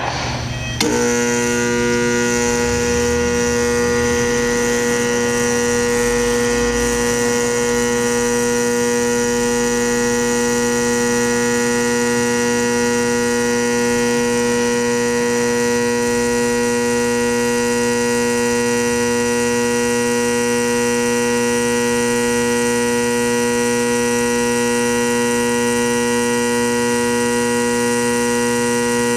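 Induction bearing heater switched on about a second in, giving a loud, steady electrical hum with many overtones as it heats a rear bearing for a shrink fit onto the shaft.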